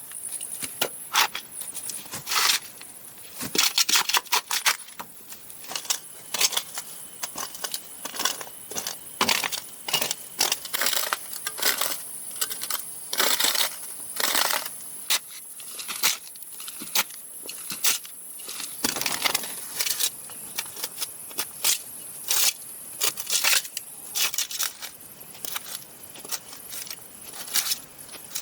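Irregular sharp knocks, clicks and clattering of bamboo being worked and handled by hand, over a steady high-pitched buzz.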